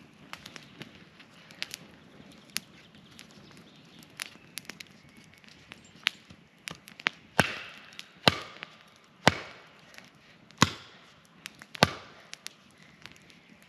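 Wood being chopped: a run of light knocks and cracks, then five heavy chopping strikes about a second apart in the second half.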